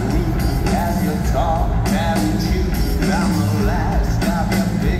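A live rock band playing at full volume, with electric guitars, bass and drums under a sung lead vocal, recorded from the crowd.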